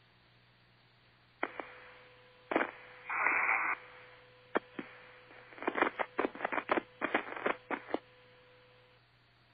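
Mission Control voice-loop radio channel with no one speaking: a low hum with sharp key-up clicks, and a steady faint tone from about a second and a half in. A burst of static comes about three seconds in, then a rapid run of clicks between about five and a half and eight seconds.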